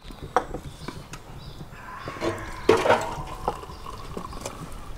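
Liquid poured from a clay jug into a glass, running steadily for a couple of seconds in the middle, among a few light knocks and clinks of the jug and glass being handled.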